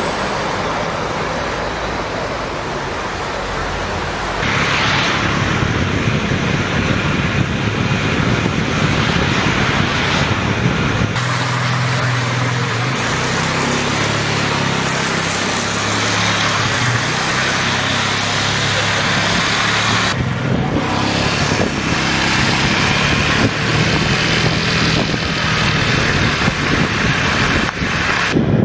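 Heavy hail falling in a dense, steady hiss of impacts, with abrupt changes in its character several times where different recordings are cut together.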